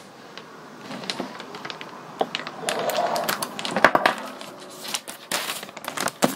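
Plastic packaging bag crinkling and rustling, with many sharp crackles and clicks, as it is slit open and a foam model tailplane is pulled out of it. The loudest crackles come a little before the middle and again about two-thirds of the way through.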